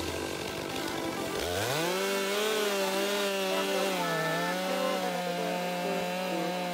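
Stihl MS 661 chainsaw's two-stroke engine revving up to full throttle about a second and a half in, then holding at high speed with small dips in pitch as the chain cuts into a large pecan stump.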